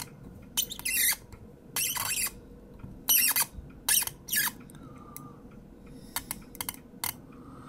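Hand scraping and rubbing on the plastic front of a Kyoritsu TK-90A analog meter while its pointer setting is adjusted: several short scrapes in the first four and a half seconds, then a few light clicks.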